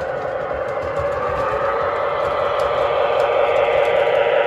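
O-gauge model train running on the layout's track, its diesel locomotive approaching and passing: a steady hum of motor and wheels on the rails that grows louder.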